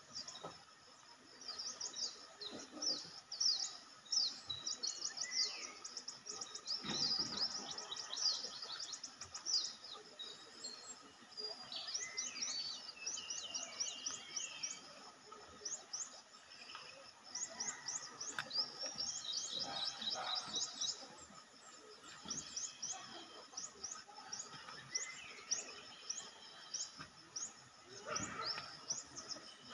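Wild birds chirping over and over in quick, high, short notes, with a steady faint hum of the surrounding vegetation beneath.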